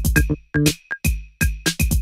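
Hip hop-style electronic beat: drum-machine kicks and sharp percussive hits in a syncopated clave pattern, some hits with short ringing high pings.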